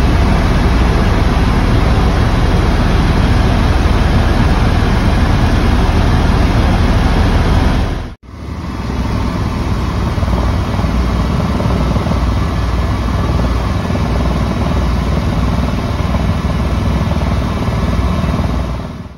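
Helicopter cabin noise: the turbine engine and rotor running steadily, heard from inside the cabin while it flies low and comes in to land. The noise cuts out for an instant about eight seconds in, comes back slightly quieter, and fades out at the end.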